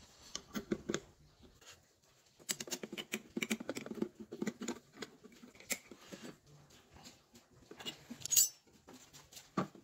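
Hand-handling noise of small metal parts on a PVC board: irregular clicks, light scraping and rattling as a saw blade and its clamp are fitted onto a motor shaft. One sharper click comes near the end.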